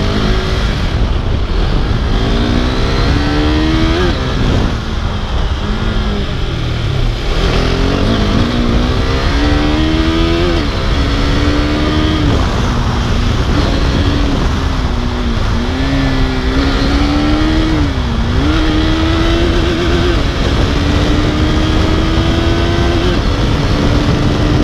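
KTM RC sport bike's single-cylinder engine pulling through the gears: its pitch climbs and drops back at each upshift several times, then holds a steadier note that slowly rises as the bike cruises. Wind noise rushes over the microphone.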